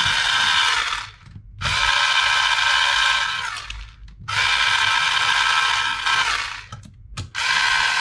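Cordless electric screwdriver whirring in repeated runs of about two seconds, with short pauses between them and the pitch dropping as each run winds down, as it backs screws out of a laptop case.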